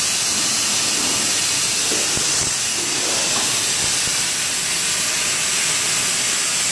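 CNC plasma cutting torch hissing steadily as it cuts, a loud even hiss with a few faint low knocks underneath.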